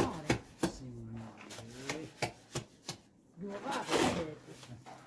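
A run of sharp knocks or taps, several a second at times, with a person's voice between them.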